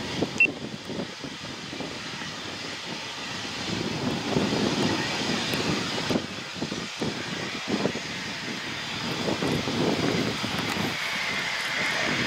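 Eurofighter Typhoon jet engines (Eurojet EJ200 turbofans) running, a steady rushing roar that grows louder about four seconds in and holds, with a faint whine near the end.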